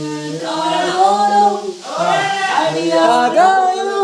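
A voice singing a melody in long held notes that bend up and down, one phrase breaking off about two seconds in before the next begins.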